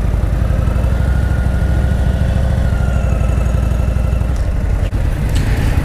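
Indian Thunderstroke 116 air-cooled V-twin of a Super Chief Limited motorcycle idling steadily with a lumpy, pulsing beat.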